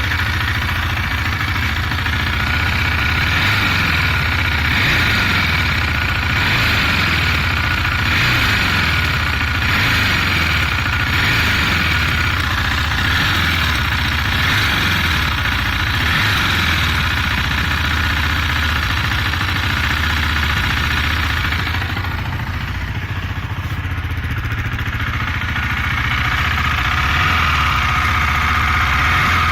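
KTM 390 Duke's single-cylinder engine running on the move, revs rising and falling, easing off for a few seconds about three-quarters of the way through. The owner hears a metal ticking from the engine when decelerating and does not know its cause.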